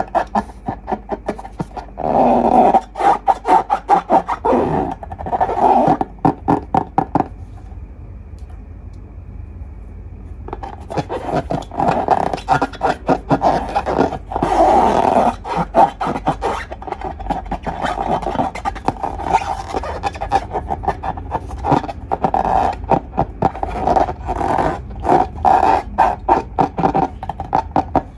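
Hands working slime and rubber balloons: rapid sticky crackling clicks and squelches, pausing for a few seconds about a third of the way in before starting again.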